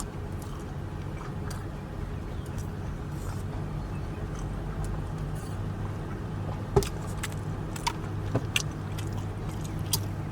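Steady low hum of a vehicle engine idling, with scattered short clicks and smacks of chewing and biting close to the microphone, most of them in the second half.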